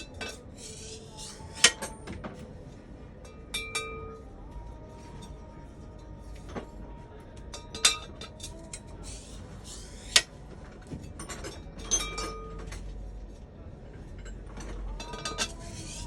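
Sharp metal-on-metal clinks and taps every few seconds, each strike with a short ring, from work fitting cylinder sleeves into a Hino diesel engine.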